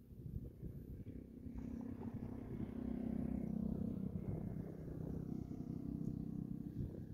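A distant engine running steadily with an even hum, growing louder over the first few seconds and then holding.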